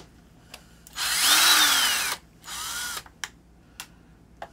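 Ryobi cordless drill driving screws out of an RC engine's pull-start cover: one run of about a second with a motor whine that climbs and then falls away, then a shorter, quieter run. A few light clicks come between the runs.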